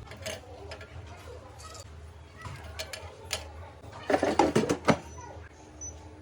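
Dry kerupuk crackers and the air fryer basket being handled: scattered light clicks, then a loud burst of rattling clatter about four seconds in, over a faint low hum.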